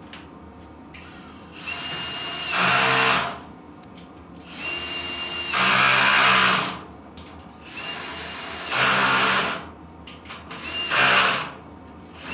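Cordless drill-driver driving screws into a steel shelving unit in four separate bursts. Each burst opens with a steady high motor whine, then runs louder for about a second as the screw goes in.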